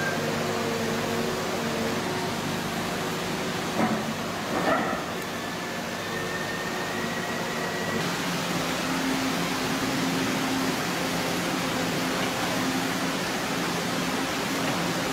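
Walking excavator's engine and hydraulics running steadily under a constant hiss. There is a brief louder clatter about four to five seconds in, followed by a thin high whine for a few seconds, and the engine hum shifts slightly higher about eight seconds in.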